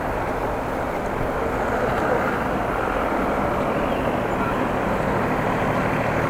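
Steady rushing noise of a bicycle ride: wind on the microphone and tyres rolling on the road, with no clear squeal standing out.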